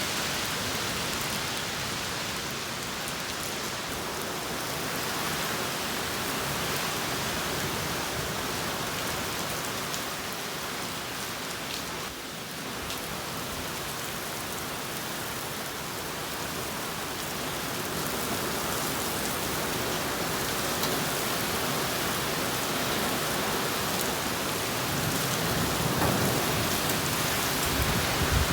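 Heavy thunderstorm downpour: a steady hiss of rain pouring onto surfaces, with a low rumble rising near the end.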